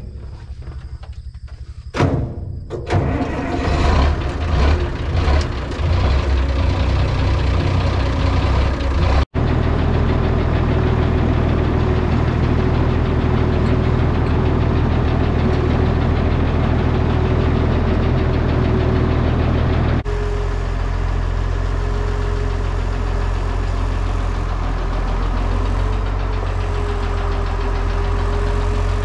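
Red International Harvester tractor's diesel engine starting about two seconds in, running unevenly for a few seconds, then settling into a steady low-pitched run.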